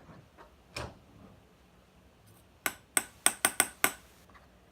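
Sharp clicks or taps on a hard object: a single one a little under a second in, then a quick run of about seven in just over a second.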